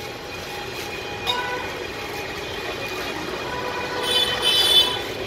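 Steady street traffic noise, with a brief high-pitched sound about four seconds in.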